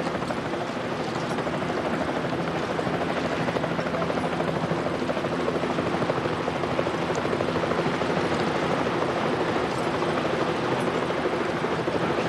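Helicopter running steadily, its rotor beating rapidly over a constant engine drone.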